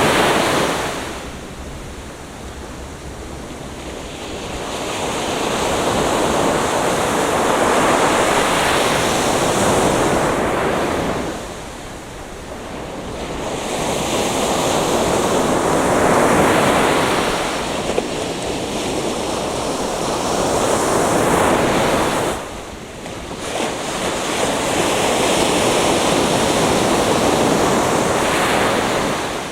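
Atlantic Ocean surf breaking on a beach: the rush of the waves swells and falls back in long surges, about five times.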